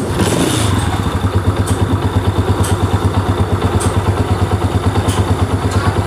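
Honda CG125 single-cylinder four-stroke engine kick-started and settling into a steady idle, firing about seven times a second, with a few faint clicks. Its valve tappets are freshly adjusted, and it runs with the extra engine noise nearly gone.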